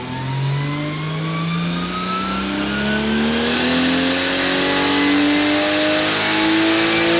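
Toyota Supra's factory turbocharged B58 inline-six making a full-throttle pull on a chassis dyno, its note rising steadily in pitch through one long run. A hiss grows in about halfway through.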